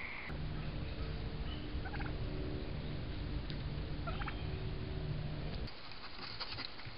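Wild turkeys calling: two short calls about two seconds apart, over a steady low rumble that stops abruptly near the end.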